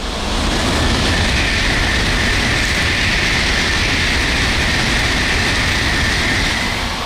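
Shinkansen bullet train passing at high speed: a steady rushing roar with a high hiss over a deep rumble, building quickly about half a second in, holding for about six seconds and easing off near the end as the train clears.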